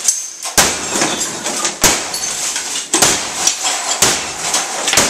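Sledgehammer blows smashing into a TV, five strikes about a second apart, with broken glass and debris crackling and tinkling after each hit.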